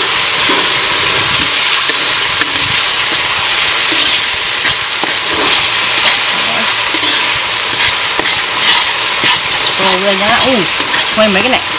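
Chili peppers, green peppercorns and young peppercorns with palm sugar sizzling steadily as they fry in hot oil in a wok, stirred with a metal ladle that scrapes and clinks against the pan now and then.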